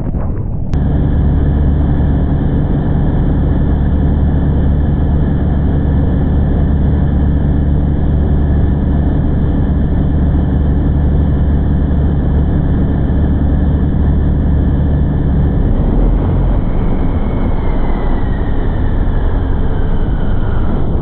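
Ski race boat's engine running loud and steady at race speed, heard from the cockpit. About three-quarters through the engine note shifts and a high whine falls steadily in pitch until the sound cuts off suddenly.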